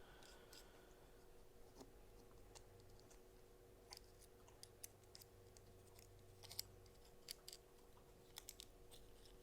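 Near silence with faint, scattered light clicks of small metal knife parts being handled and fitted during reassembly, over a low steady hum.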